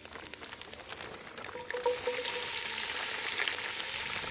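Bacon sizzling as it fries in a Dutch oven, a steady hissing crackle that grows louder about two seconds in.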